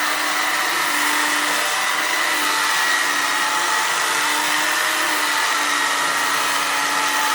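Electric power tool running steadily, a continuous whirring with a steady whine, with no breaks.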